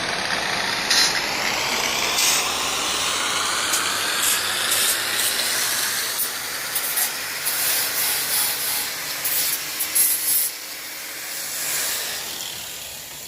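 Steady rasping, scraping noise made of many short strokes, which drops off and turns quieter about ten and a half seconds in.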